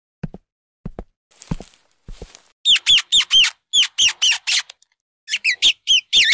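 Evenly paced footsteps for the first couple of seconds, then rats squeaking: loud, high, arching squeaks in quick runs of three or four.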